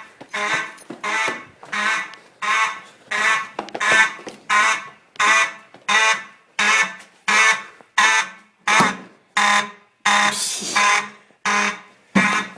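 Fire alarm horns sounding in a steady, evenly pulsed pattern, about three blasts every two seconds, each blast a loud buzzy pitched tone. A noisier burst comes about ten seconds in.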